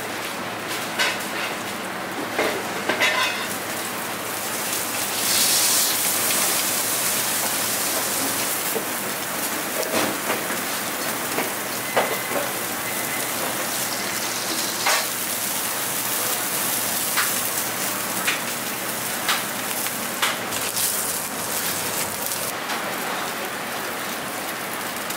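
Scallops and a salmon steak sizzling in oil on a flat-top griddle, a steady hiss that swells about five seconds in. Sharp clicks of metal tongs against the griddle come now and then.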